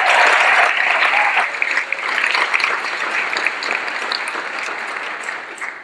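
Audience applauding, loudest at first and fading away gradually over the few seconds.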